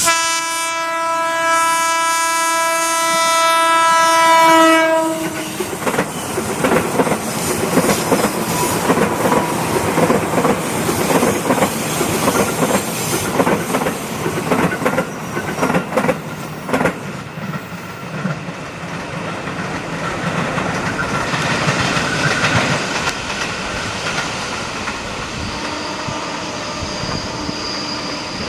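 JR 205 series electric commuter train sounding one long horn blast lasting about five seconds, then passing over a bridge with a fast, dense clatter of wheels over the rail joints. The clatter eases after about seventeen seconds into steadier running, with a faint steady whine near the end.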